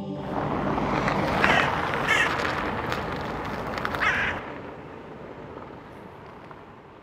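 A crow cawing a few times over a rushing outdoor background noise that fades away after about four seconds.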